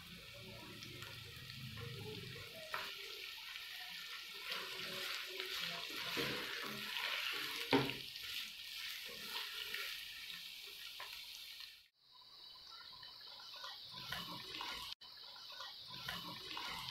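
Sliced onions sizzling in hot oil in a non-stick wok while a spatula stirs them, with a sharp knock about midway. The sizzle breaks off abruptly twice in the second half.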